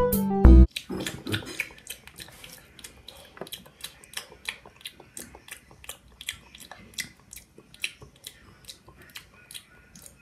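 Music cuts off less than a second in. Then comes loud chewing and crunching, an uneven string of sharp wet clicks several times a second.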